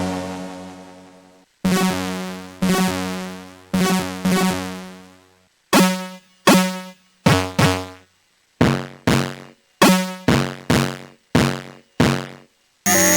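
UVI 8-Bit Synth preset being played: a held chord dies away, then a run of plucked synth notes, each starting sharply and fading quickly, coming shorter and faster (about two a second) in the second half. Just before the end a new, busier synth sound starts.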